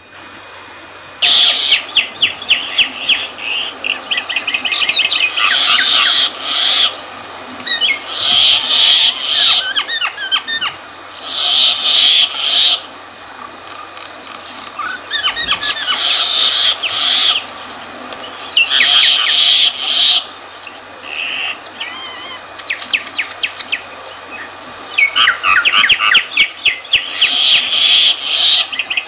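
Myna calling in repeated bouts of rapid chattering, with some gliding whistled notes. Each bout lasts a few seconds, with short pauses between.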